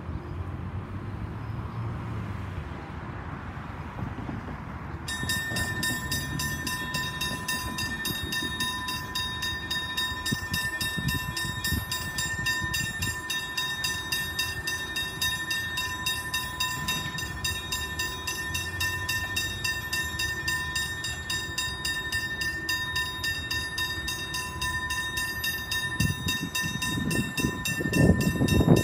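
Level-crossing warning bells (electronic hybrid bells) start abruptly about five seconds in and ring on rapidly and steadily: the crossing has activated for an approaching train. A low rumble builds near the end.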